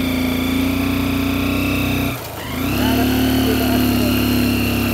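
Vehicle engine running steadily on the move, easing off briefly about two seconds in and then pulling again at a steady pitch that slowly sinks.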